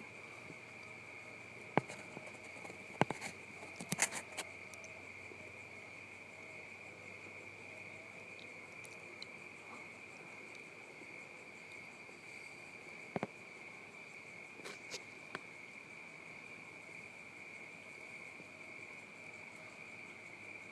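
A faint, steady, high chorus of crickets, with a few sharp clicks and taps scattered through it, several close together a few seconds in and again near the middle.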